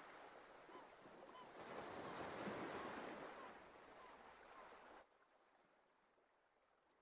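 Faint wind and sea noise on a boat, swelling and then easing off, with a few faint short high chirps; it drops to near silence about five seconds in.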